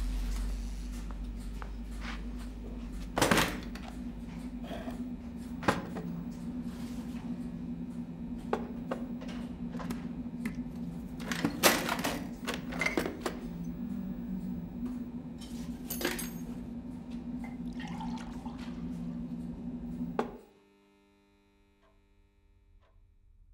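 Metal tools and parts clinking and clattering as they are handled at a workbench, over a steady low hum. About twenty seconds in, both stop suddenly and only faint ticking is left.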